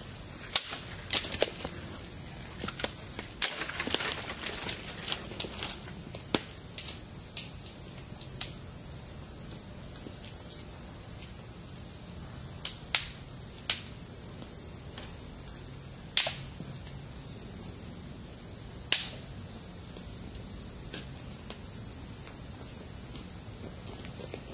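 A steady high-pitched chorus of insects, with scattered sharp clicks and knocks now and then over it.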